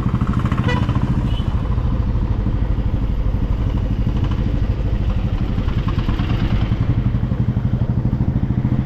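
Motorcycle engine running steadily, with an even low pulsing beat.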